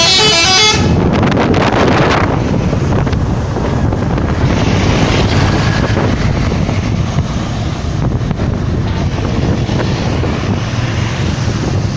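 Bus 'telolet' multi-tone air horn playing a quick stepping run of musical notes that cuts off within the first second. Then a steady low rumble of vehicle traffic, with wind noise on the microphone.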